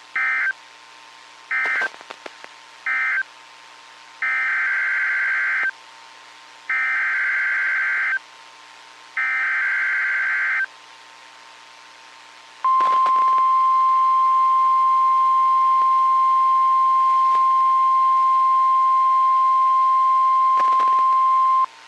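NOAA Weather Radio Emergency Alert System tones: three short SAME data bursts ending the previous message, then three longer screeching SAME header bursts, each about a second and a half, announcing a new warning. Then the steady 1050 Hz weather radio warning alarm tone sounds for about nine seconds and cuts off abruptly.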